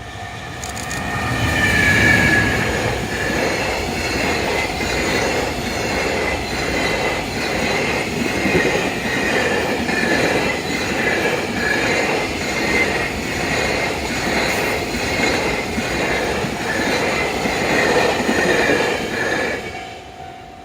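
JR Freight EF210 electric locomotive and its freight wagons passing at speed, the wheels clattering over rail joints in a steady, even rhythm. The noise falls away sharply near the end as the last wagon goes by.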